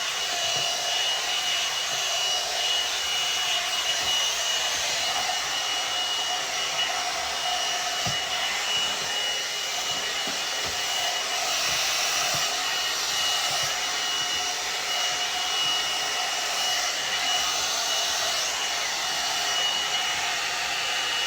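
One-step hot-air dryer brush running steadily, a rush of blowing air with a steady high whine from its motor.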